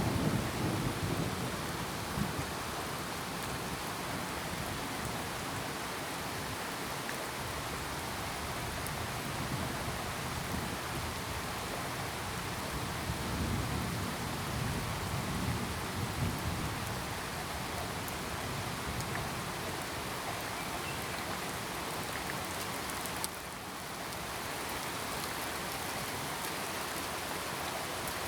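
Steady, heavy rain falling, with low rolls of thunder rumbling near the start and again around the middle. The rain briefly drops in level about three-quarters of the way through.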